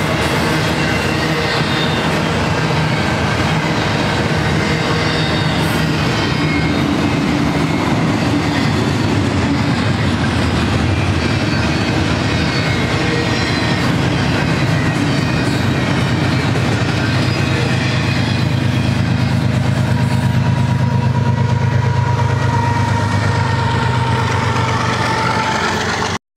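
Long double-stack intermodal freight train rolling past: a steady rumble and clatter of wheels on rail, with thin steady squeals from the wheels. In the second half a diesel locomotive's deep engine hum grows louder as the locomotive at the rear of the train draws near. The sound cuts off suddenly at the end.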